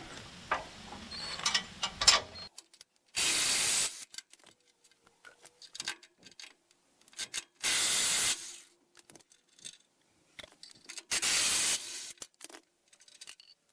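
Cordless drill/driver spinning three bolts out of a steel frame: three short runs of about a second each, with small metallic clicks of handling between them.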